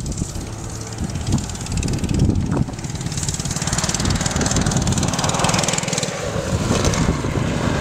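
Small combustion engine of a large-scale radio-controlled pickup truck running under throttle as it drives across dirt, the revs rising in the second half.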